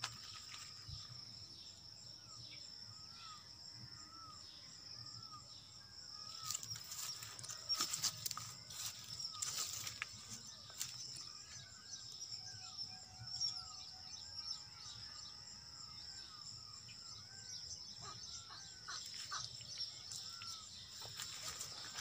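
Outdoor rural ambience: small birds chirping repeatedly over a steady high-pitched insect drone. Several handling knocks and rustles come from about six to eleven seconds in.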